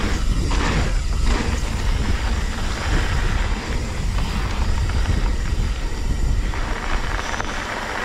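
Mountain bike riding on a dirt trail: wind rumbling on the microphone over the rush of the tyres, a steady noisy sound with a heavy low rumble.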